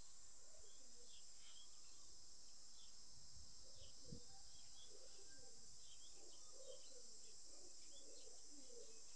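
Birds chirping in short, scattered calls over a steady, high-pitched insect drone, all faint.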